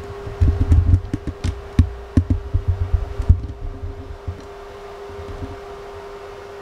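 A steady mechanical hum, with a run of low thumps and knocks over the first three and a half seconds, then only the hum.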